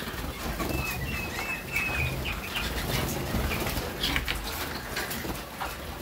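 Young Harzer Roller canaries fluttering their wings in a flight cage, with a run of short high chirps during the first two seconds and many small flutters and clicks throughout, over a low steady hum.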